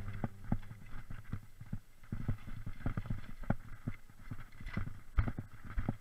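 Mountain bike clattering down a rocky trail: irregular knocks and rattles, several a second, as the wheels and frame jolt over stones, with the hardest knock a little after five seconds in.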